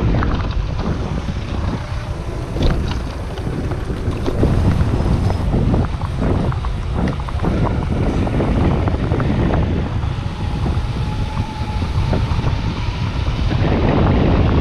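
Wind buffeting the microphone of a chest-mounted action camera on a moving mountain bike: a loud, steady low rumble with scattered clicks and knocks.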